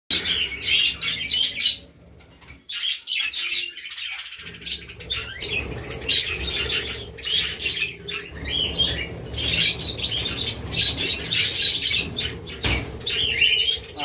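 A flock of budgerigars chattering, a constant mass of overlapping high chirps and warbles, with a brief lull about two seconds in.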